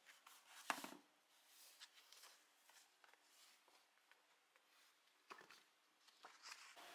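Near silence: room tone with a few faint clicks and rustles, the clearest about a second in and two more near the end.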